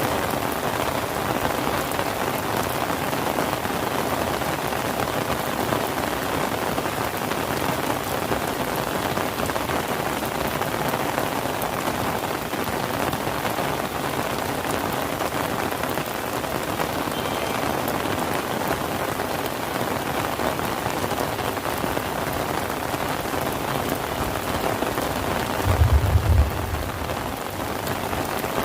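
Steady rain falling on surfaces, an even pattering hiss. Near the end there is one brief, low thump lasting about a second.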